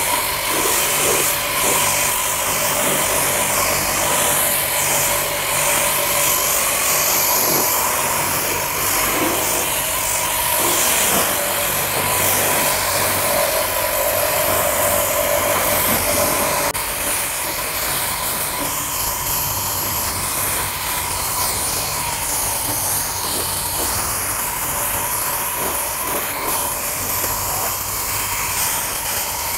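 JPT 1800-watt electric pressure washer running steadily, its motor humming under the hiss of the water jet as it rinses foam off a car's painted bodywork. The sound drops a little in level about seventeen seconds in.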